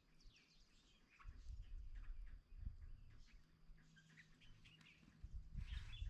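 Faint scattered bird chirps and short calls, from birds such as common mynas and red-vented bulbuls, over an irregular low rumble that swells from about one to two seconds in and again near the end.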